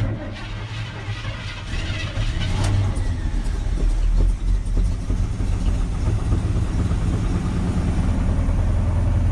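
1977 Chevrolet C10 pickup's engine, after sitting nine years, catching at once and running steadily, a little louder about three seconds in.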